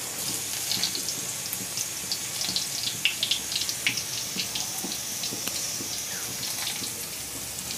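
Dried red chillies sizzling in hot mustard oil in a kadai: a steady hiss with many small pops and crackles.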